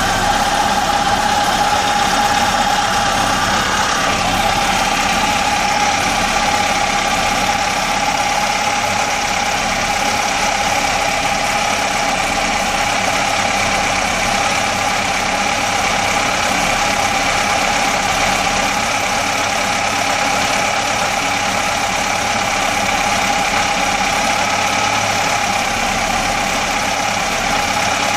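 Universal Atomic 4 four-cylinder flathead gasoline inboard marine engine running steadily, with a constant whine over the engine note and the popping noise the owner is asking about.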